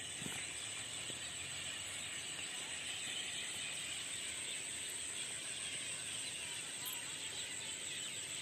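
Dense outdoor chorus of chirping birds and insects, with a steady high-pitched insect drone underneath.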